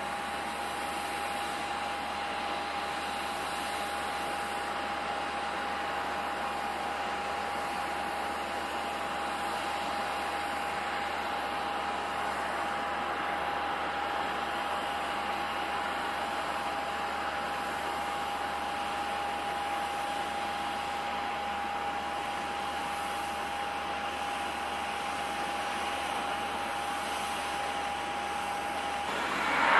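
Boeing 737-800's CFM56-7B jet engines at takeoff thrust during the takeoff roll, heard from a distance as a steady rushing noise with a steady whine. It grows sharply louder right at the end.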